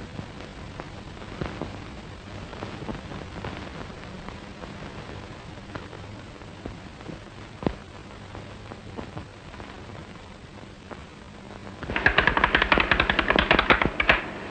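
Garmon (Russian button accordion) giving a loud, rapid rattling clatter that starts about twelve seconds in and lasts about two seconds. Before it there is only the faint hiss and scattered clicks of an old film soundtrack.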